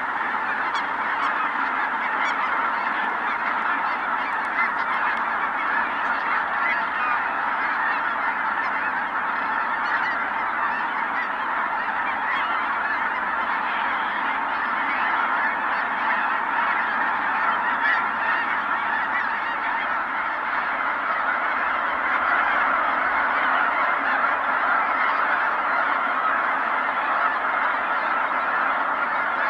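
A large flock of geese, Ross's geese among them, calling all at once in a dense, continuous chorus of high-pitched honks, a little louder about two-thirds of the way through.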